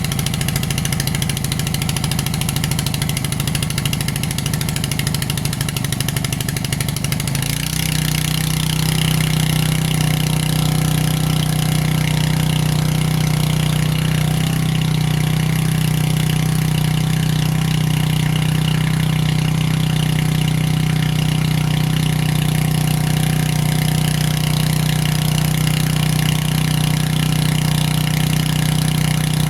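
Predator gas-powered water transfer pump's small single-cylinder engine running. About seven seconds in it speeds up to a higher, steadier note, slightly louder, and holds there.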